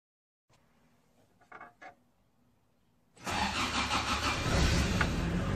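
Toyota 4A-GE twin-cam four-cylinder engine in an AE86 Corolla starting up about three seconds in, then running steadily. Two faint short sounds come shortly before it.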